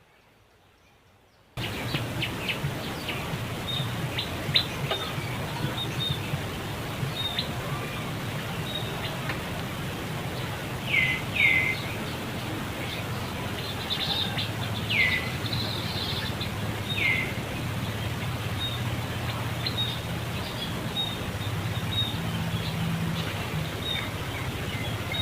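Outdoor ambience that starts about a second and a half in: scattered small clicks over a steady low hum. A handful of short high animal calls slide downward, two close together in the middle and more after.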